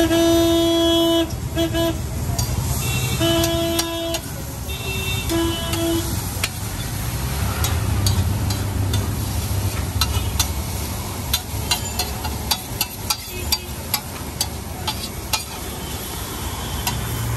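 Vehicle horns honking in several short and long blasts over steady street traffic noise for the first few seconds. Then a metal spatula clacking and scraping on a large flat tawa in quick, irregular strokes, as onions, tomatoes and masala are chopped and mixed.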